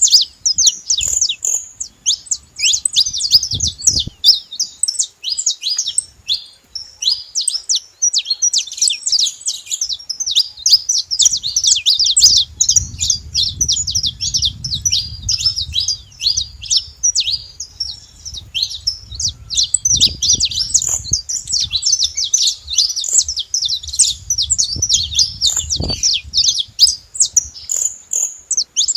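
Saffron finch singing, a continuous fast stream of high chirping, twittering notes with no real pauses. A soft low rumble sits underneath at times.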